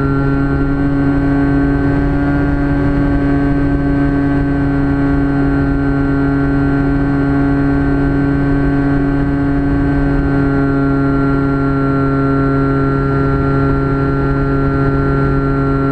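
Brushless electric motor and pusher propeller of a Phantom FX-61 flying wing running at steady throttle, heard from the onboard camera: a steady buzzing drone over wind rush on the microphone.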